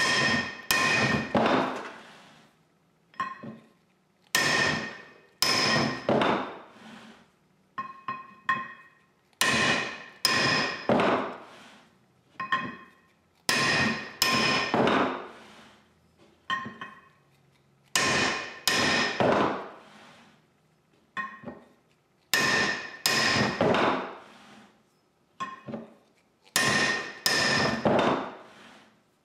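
Hammer blows on a steel drift driving the old ring gear off a Willys MB flywheel. The metal strikes come in clusters of two or three with short pauses between, and each leaves a brief bell-like ring from the steel gear.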